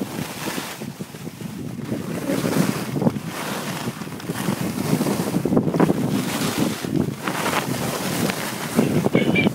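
Wind buffeting the microphone of a camera carried by a moving skier, mixed with skis scraping over packed snow, rising and falling in swells.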